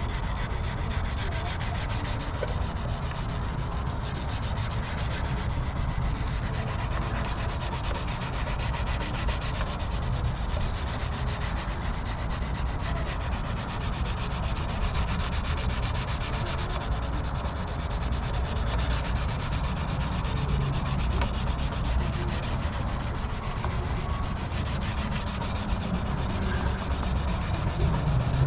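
Wet sanding of a plastic headlight lens by hand: fine-grit sandpaper on a foam sanding disc holder rubbed steadily back and forth across the lens. This is the first sanding step of restoring an oxidized headlight.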